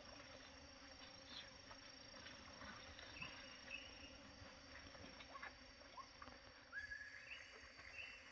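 Quiet lakeside ambience: a faint steady insect hum with a few short, scattered bird chirps, and a rising bird call about seven seconds in.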